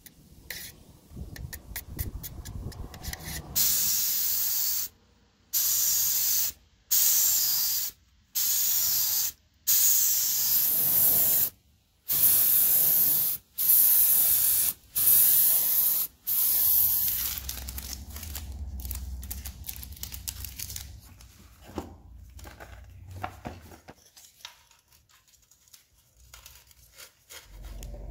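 Paint or primer spraying in about eight short bursts of hiss, each a second or so long with brief gaps between them. Quick clicks come before the spraying and a quieter low hum with scattered clicks after it.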